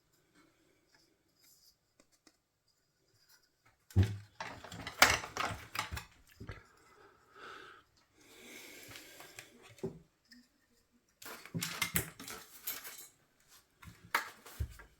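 Irregular clicks, taps and scrapes of small hard parts being handled, starting about four seconds in after near silence and coming in short clusters.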